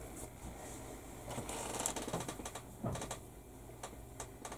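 Grey plastic model-kit sprue being handled and laid down on a cutting mat: light plastic rattling and clicks, with a sharper knock about three seconds in.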